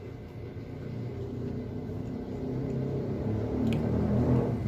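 A low motor rumble, growing steadily louder, with a single light click about three and a half seconds in.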